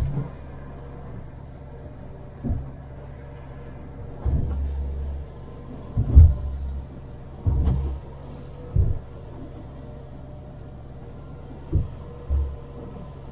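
Small boat's hull pounding through rough swells: about eight heavy slams and splashes a second or two apart, over a low, steady engine drone.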